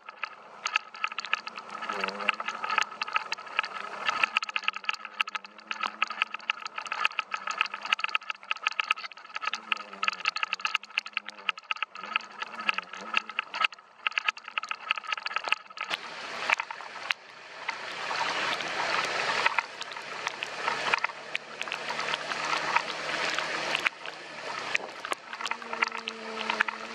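Raindrops tapping rapidly on the camera over a Honda motor scooter riding through floodwater. A little past halfway, a steady rush of water spray from the wet road joins in.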